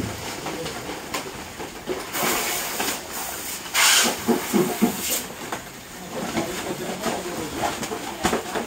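Compressed oxygen hissing from a hose in bursts, about two seconds in and loudest about four seconds in, as water-filled plastic bags of vannamei shrimp seed are inflated before tying; plastic bags rustle in between.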